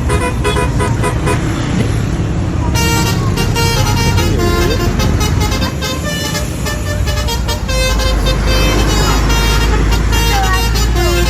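Bus 'basuri' telolet horns, multi-tone musical horns, sounding short runs of notes over road traffic. A bus engine rumbles close by from about eight seconds in.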